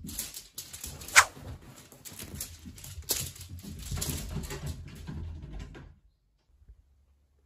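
Fabric rustling as a cat scrambles about in a rumpled duvet, with one short, sharp sound falling in pitch about a second in. The rustling stops suddenly about six seconds in.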